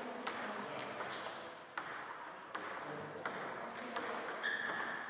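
Table tennis balls ticking off bats and tables: scattered sharp, irregular clicks. A short squeak comes near the end.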